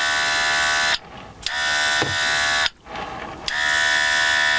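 Battery-powered airbrush's built-in mini compressor buzzing with a hiss of air as it sprays acrylic weathering paint. It runs in three spells, cutting out twice briefly as the trigger is released.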